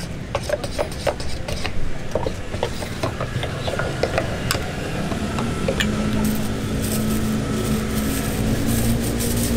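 Metal ladle stirring oyster-fritter batter in a stainless-steel bowl, clinking and scraping against the bowl in a run of quick clicks. About halfway through a steady low hum sets in, and a plastic bag rustles near the end.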